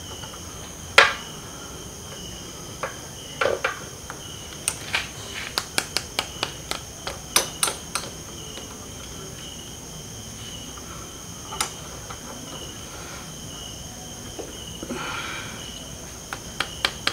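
Fingers tapping on a brake-bleeding syringe and its tube, light sharp clicks in runs of several a second, to work air bubbles out of the brake line during reverse bleeding of a motorcycle's front disc brake. A steady high-pitched tone runs under them.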